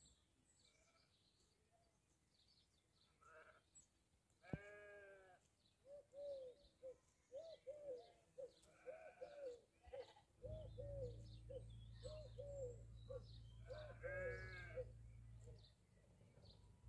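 Sheep bleating in a field, quiet and distant: one long bleat about four seconds in and another near the end, with a run of short calls between them. A low steady hum comes in a little after the halfway point.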